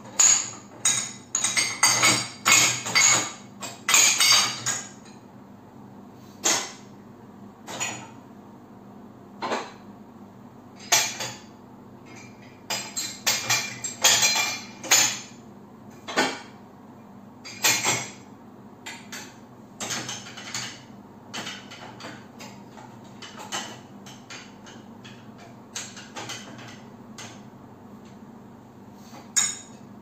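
Cups, glasses and plastic containers clinking and knocking as they are set into a dishwasher's upper wire rack: short sharp knocks in irregular clusters, thick and fast at the start and again around the middle, sparser towards the end.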